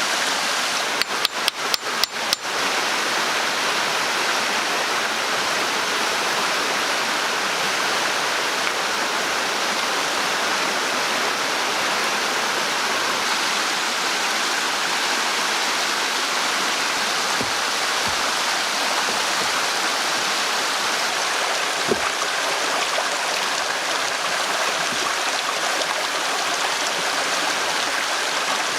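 Steady rushing water of a stream. About a second in comes a quick run of about seven sharp taps, and later a single knock.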